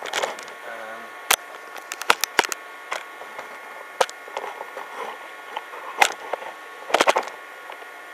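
Steady whine from a running moving-head stage light, with sharp clicks and knocks every second or two and a short rattling cluster about seven seconds in.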